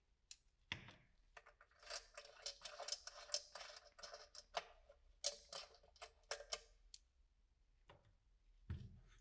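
Faint run of small metallic clicks and scrapes as a screw and washer are turned by gloved fingers against a black stainless-steel exhaust silencer, with a soft knock near the end.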